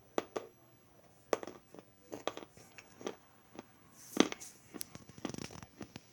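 Close-up crunching: a dozen or so irregular crisp snaps and crackles, the loudest about four seconds in.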